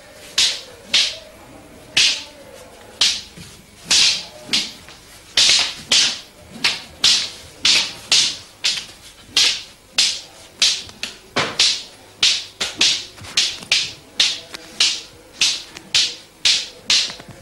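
Wooden fighting staffs cracking against each other in a fast Kalaripayattu sparring exchange. There are sharp, ringing clacks, about two a second at an uneven pace, and the strikes crowd closer together from about five seconds in.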